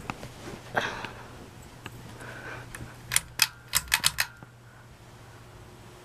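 A ceiling fan's low, steady motor hum, with a quick run of about six sharp clicks a little after three seconds in.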